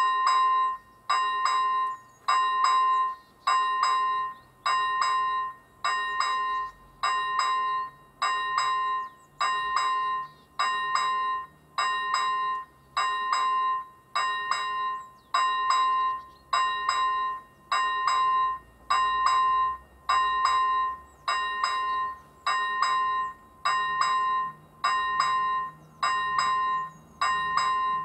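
Level crossing warning bell ringing about once a second, each stroke a clear ding that dies away quickly. It sounds while the red lights flash, signalling that the crossing is closed for an approaching train.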